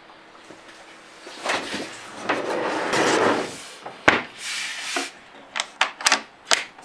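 Wood sliding and rubbing, then several sharp metallic clicks as a small brass barrel-bolt latch on a plywood frame is slid back and forth by hand.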